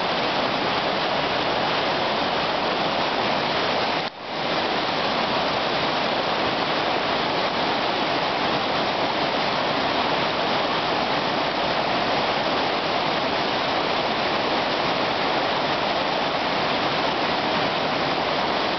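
Flooded river rushing over rapids: a steady, loud rush of whitewater, briefly dipping about four seconds in.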